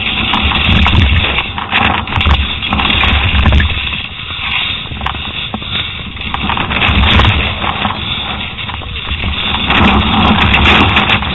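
Wind buffeting the microphone of a downhill mountain bike's onboard camera, surging and easing, over the rush of tyres on loose dirt and rock. Sharp knocks and rattles from the bike come as it hits bumps.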